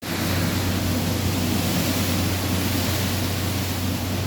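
Strong wind from a storm's feeder band rushing steadily, a loud even noise with a low rumble underneath.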